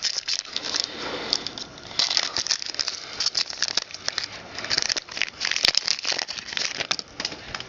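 Hockey trading cards being handled and flipped, making an irregular rustle of paper and plastic with many small clicks and flicks.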